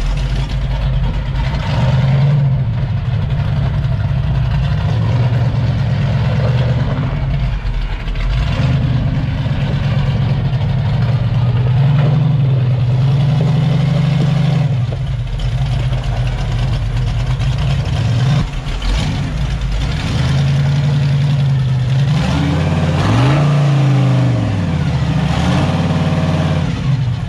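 Rock buggy's engine working under load at crawling speed, its revs rising and falling repeatedly as it climbs a rock ledge, with a quick run of short rev changes near the end.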